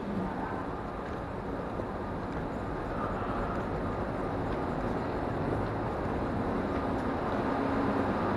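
Steady rumbling background noise in a railway station's pedestrian underpass, with no distinct events standing out.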